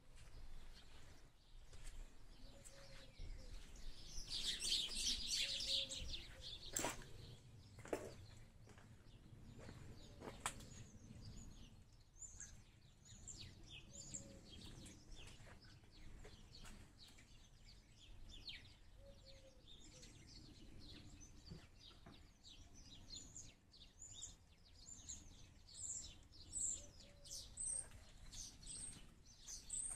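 Small birds chirping faintly, with many short, high chirps repeating through the second half and a louder stretch about five seconds in. A few sharp knocks come in between, over a faint low background rumble.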